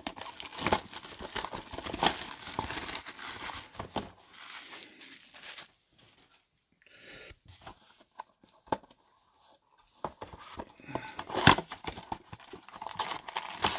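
Plastic wrapping torn off a cardboard trading-card box and crinkled for about four seconds. After a near-silent pause with a few light clicks, the opened box's cardboard and foil card packs rustle as the packs are pulled out near the end.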